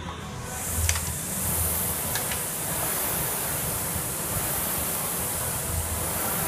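Air-resistance rowing machine's flywheel being rowed hard: a steady rushing whoosh, with a few faint clicks in the first couple of seconds.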